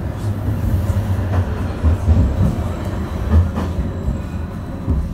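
Edinburgh tram (CAF Urbos 3) running on street track, heard from inside the passenger saloon: a steady low rumble from the wheels and running gear, with irregular knocks and faint clacks over the rail joints.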